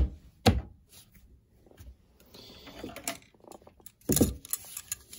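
Handling sounds at a table: two sharp thumps half a second apart at the start as a hand comes down on the playmat, then faint clicks and rustles, and a clatter of knocks about four seconds in as a plastic box cutter is handled.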